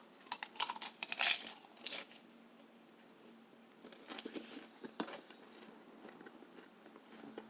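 A crunchy snack being bitten and chewed: a quick run of sharp crunches in the first two seconds, then fainter scattered chewing clicks.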